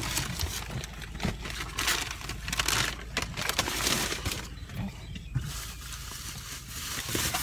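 Plastic shopping bags rustling and crinkling in irregular bursts as someone rummages through them.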